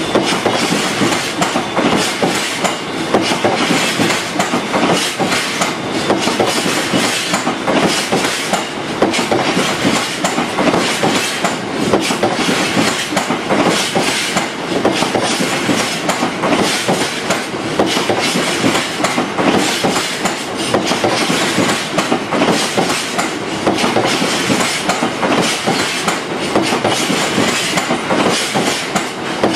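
A freight train of GB Railfreight covered hopper wagons rolling steadily past, its wheels making a continuous dense clatter of clicks over the rail joints.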